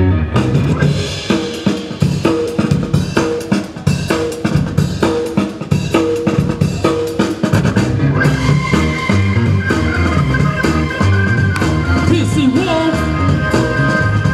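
Loud music with a driving drum-kit beat of bass drum, snare and rimshots. Longer held melodic tones join the beat about eight seconds in.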